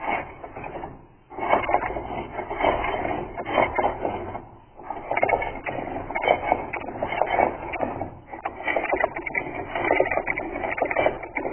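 Computer keyboard keys clattering in dense, irregular runs, slowed down and lowered in pitch, with short pauses about a second in and again a little before halfway.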